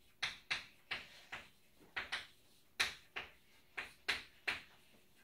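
Chalk writing on a blackboard: about a dozen short, sharp taps and scrapes at an uneven pace, some in quick pairs, as letters are written, stopping shortly before the end.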